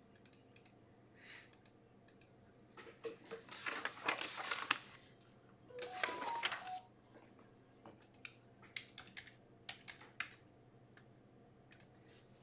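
Computer keyboard typing and clicking in scattered, irregular taps, with two short stretches of louder rustling noise a few seconds in.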